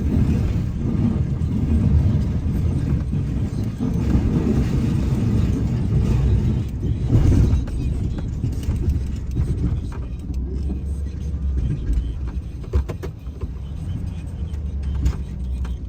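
Snow plow truck's engine running with a steady low rumble, easing off a little in the second half, with a few short sharp knocks near the end.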